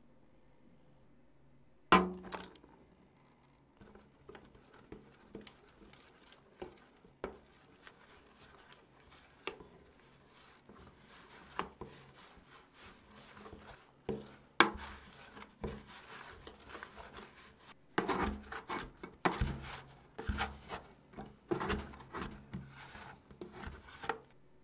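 Bread dough being mixed by hand in a glass dish: fingers squishing and rubbing the shaggy flour-and-water dough, with taps and scrapes of a plastic dough scraper against the glass. A sharp knock comes about two seconds in, and the handling gets busier and louder near the end.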